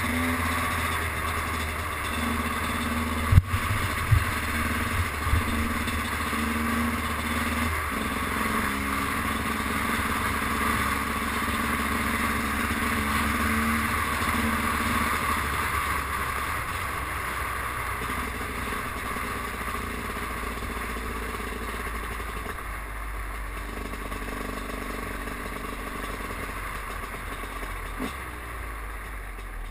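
Enduro dirt bike engine running at speed under a steady rush of noise, heard through a helmet-mounted camera. A few sharp knocks come between three and five seconds in, the engine note steps down in pitch about eight seconds in, and the sound grows gradually quieter toward the end.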